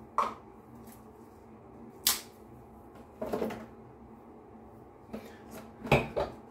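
Cardboard and plastic shave-kit packaging being handled: a handful of short clicks, taps and rustles, a longer rustle about three seconds in and the loudest clatter near the end.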